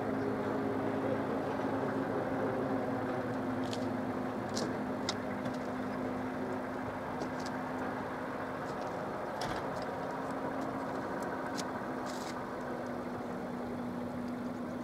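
Vehicle engine idling steadily with a constant low hum, with a few light clicks scattered through it.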